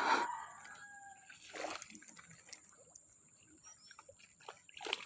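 Water splashing in short bursts, three times, as a hooked fish thrashes at the surface during the fight.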